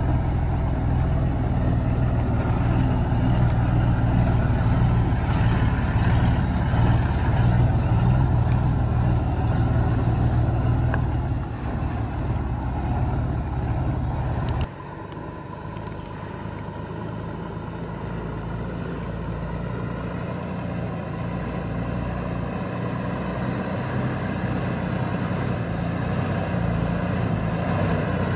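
Heavy truck engine running steadily. About halfway through the sound drops off suddenly, and a quieter engine then slowly grows louder.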